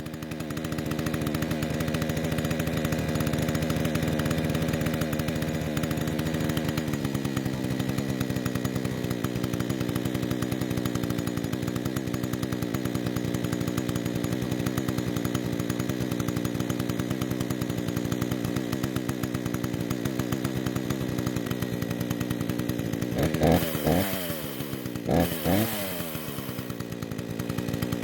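Craftsman two-stroke chainsaw engine running just after starting: it holds a higher steady speed, drops to a lower idle about seven seconds in, then is revved up briefly a few times near the end. It is burning off the extra fuel left in the engine from earlier failed starts, and otherwise runs fine.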